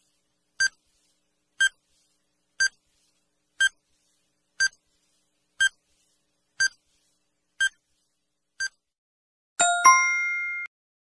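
Countdown timer sound effect: a short, high beep once a second, nine times, then a louder chime of several tones that rings for about a second as the timer reaches zero, signalling time up.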